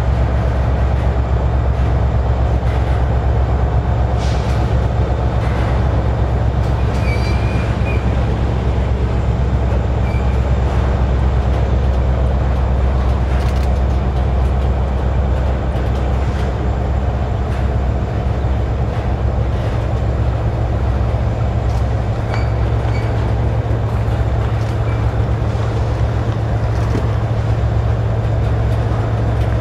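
Tank cars of a freight oil train rolling slowly past, a steady low rumble with scattered clicks of wheels over the rail and a few faint, short wheel squeals.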